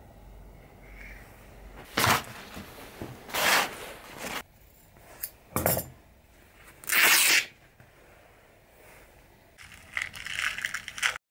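Close-up handling sounds of craft materials: several short rustling swishes as twine and a piece of black material are pulled and handled, then crackling near the end as a small cardboard box is handled.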